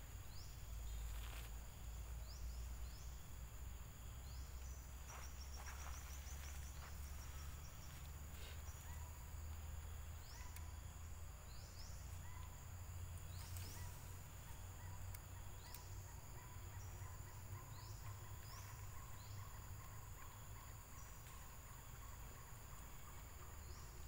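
Forest ambience: a steady high insect drone with short rising chirps repeating every second or two, over a low rumble.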